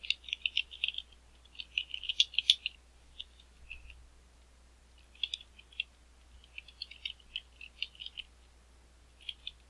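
Computer keyboard typing: runs of quick key clicks in several bursts with short pauses between them.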